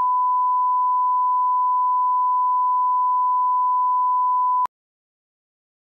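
Steady 1 kHz reference tone, the line-up tone laid at the head of a video programme, holding one pitch and cutting off suddenly about four and a half seconds in.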